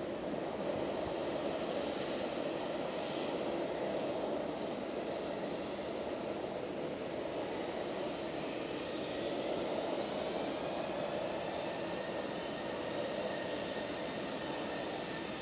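Jet airliner taxiing with its engines running at low thrust: a steady rushing hum. About halfway through, a faint high turbine whine comes in and slowly shifts in pitch.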